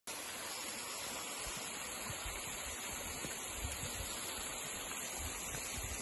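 Steady rush of a waterfall and its rocky mountain stream, with a few soft low thumps underneath.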